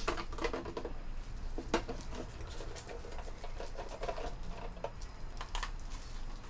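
Plastic clicks, knocks and rattles of a hand-operated vegetable dicer being worked on an onion, then its catch container unclipped and lifted off, with sharp clicks at the start, about 2 seconds in and near the end.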